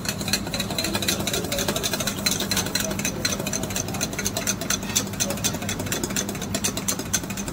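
Wire whisk beating fast against a stainless steel bowl, a rapid unbroken run of metallic clicks and scrapes, as egg yolks and clarified butter are whisked into hollandaise. A steady low hum runs underneath.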